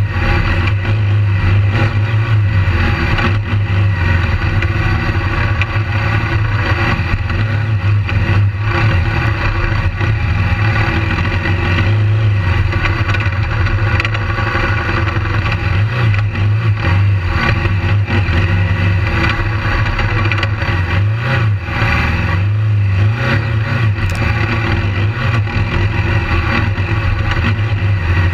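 Motorcycle engine running hard as the bike is ridden over a dirt track, its note rising and falling with the throttle.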